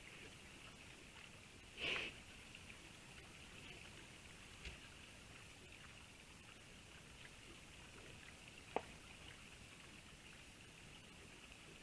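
Wild boar rooting and foraging in the forest litter: one short, louder rooting noise about two seconds in and a sharp click later, over a faint steady hiss.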